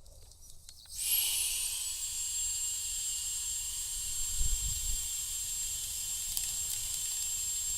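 Scallops sizzling in butter in a hot pan: a steady hiss that starts suddenly about a second in, with a thin high whistle that slides down and then holds.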